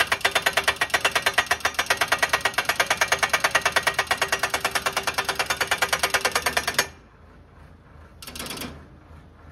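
Tractor-mounted hydraulic hammer (rock breaker) pounding a steel crash-barrier post into the soil with fast, even blows, about ten a second. It stops abruptly about seven seconds in, and a short rush of noise follows about a second and a half later.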